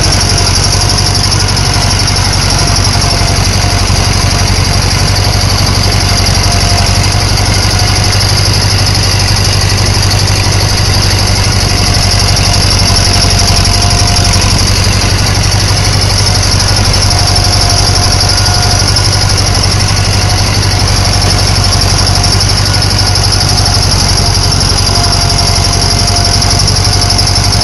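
1964 David Brown tractor engine running steadily while the tractor pulls a harrow, heard from the driver's seat, with a faint squeal that comes and goes every few seconds.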